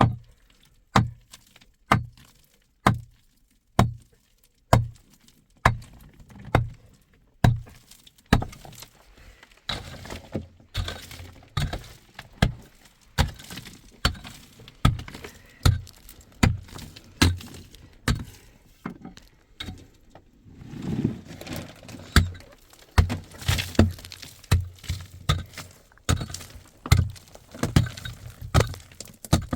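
A hand tool striking rock or hard ground over and over, about one blow a second, with loose material rattling between blows in the second half.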